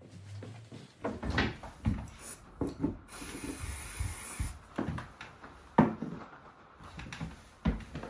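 Irregular wooden knocks, clatters and rubbing of things being handled and set down, with a burst of hiss about three seconds in that lasts a second and a half.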